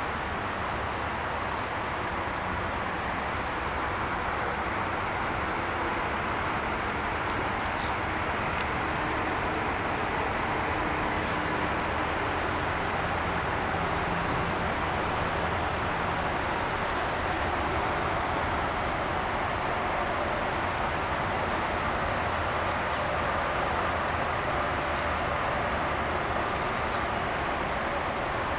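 Steady rush of stream water running over a riffle, with a steady high insect chorus, such as crickets, above it.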